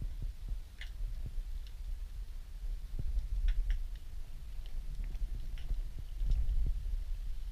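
Underwater ambience: a steady low rumble of moving water with irregular short, sharp clicks scattered through it.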